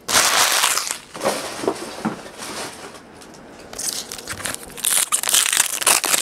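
Foil trading-card pack wrapper crinkling as a pack is torn open and the cards are pulled out. A loud burst of crinkling comes at the start, then lighter rustles, then a longer stretch of crinkling from about four seconds in.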